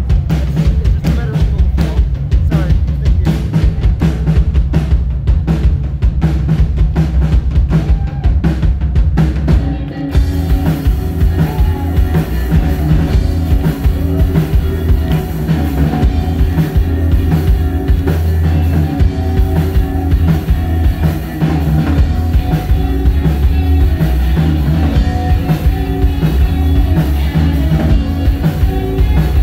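Live rock band. A drum kit plays a steady beat alone for about the first ten seconds, with kick and snare hits and a heavy low end. The rest of the band then comes in with sustained chords over the drums.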